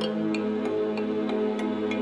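Background music: a soft new-age track with held tones and a light ticking beat about three times a second.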